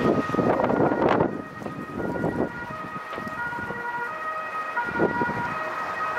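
Boeing 737's twin jet engines running at high thrust as the airliner lifts off and climbs, under strong wind gusts buffeting the microphone, the loudest in the first second and again near the end. Steady high tones step between a few pitches above the engine rumble.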